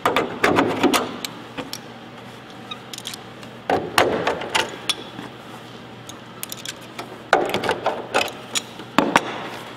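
Clecos being set with cleco pliers into freshly drilled holes in a flaperon and its counterweight: clusters of sharp metallic clicks and rattles, in several bursts with short pauses between.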